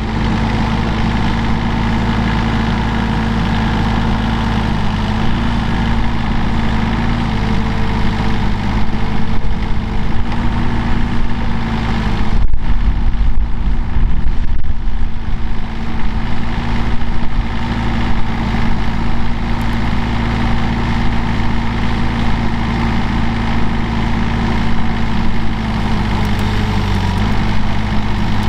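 Mini excavator's diesel engine running steadily while the arm and bucket dig, its note stepping slightly up and down in pitch. It gets louder and rougher for a few seconds about halfway through.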